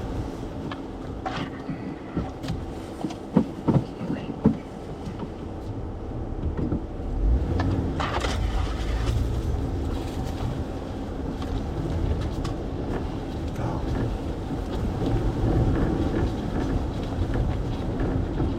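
Jeep engine pulling at crawling speed over rocks, heard from inside the cab. Several sharp knocks and clunks come from the rocks and running gear in the first few seconds, and the engine gets louder about seven seconds in as more throttle is given.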